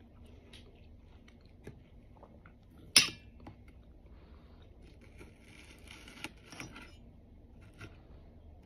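Metal fork and knife clinking and scraping against a stainless steel bowl while cutting up watermelon, with one sharp clink about three seconds in, the loudest sound, and a stretch of scraping and rattling a couple of seconds later.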